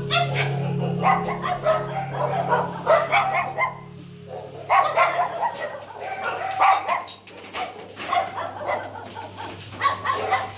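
A pack of dogs barking and yipping over one another in short, overlapping calls, with a brief lull about four seconds in.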